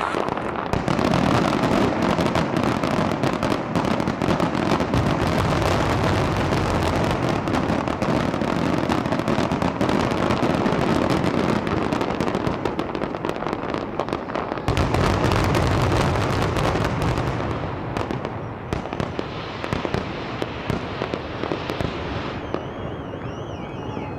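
Dense fireworks barrage: continuous crackling and popping over a low rumble of shell bursts, with a heavier burst about fifteen seconds in. It thins to scattered cracks over the last several seconds, with a wavering whistle near the end.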